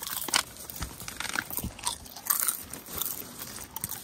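Someone crunching and chewing kettle corn close to the microphone: irregular crisp crunches throughout.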